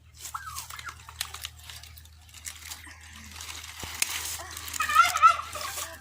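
Farm fowl calling, with a loud warbling call about five seconds in, over the rustle and crunch of pineapple plants being handled as a fruit is picked.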